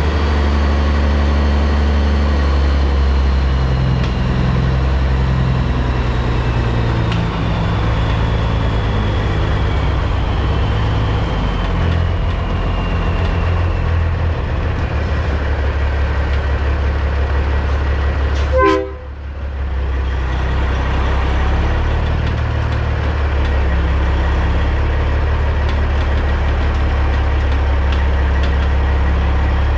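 A Peterbilt 379's CAT C15 diesel engine running at low, steady revs as the truck reverses, with a faint high whine slowly falling in pitch over the first half. About two-thirds through, a short sharp noise, after which the engine sound briefly drops.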